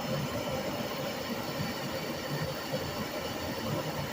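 Oil burner on a small cast iron oil boiler running steadily, a constant rumble and hiss of the burner fan and flame.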